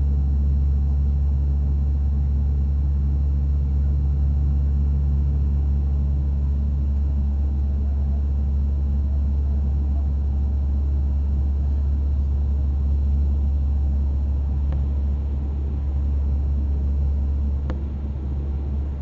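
Cabin sound of a Dash 8 turboprop airliner in flight after take-off: a steady, deep propeller and engine drone heard from a seat beside the propeller. It eases slightly near the end.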